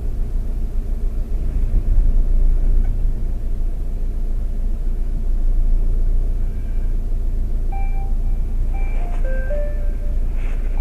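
Steady low rumble of a motor vehicle. In the second half a simple electronic tune of short beeping notes starts, stepping up and down in pitch.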